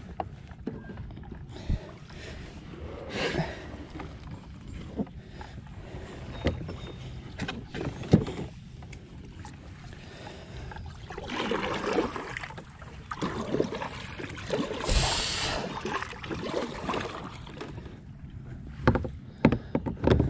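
Plastic sit-on-top kayak moving through calm water: water swishing and lapping against the hull, with scattered sharp knocks and clunks of gear against the plastic. The loudest swish comes about fifteen seconds in, and a quick run of knocks comes near the end.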